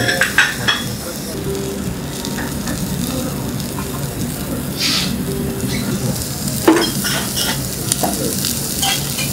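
Yakitori chicken skewers sizzling steadily on a wire grill over binchotan charcoal, with a few sharp clicks, the loudest about two-thirds of the way through.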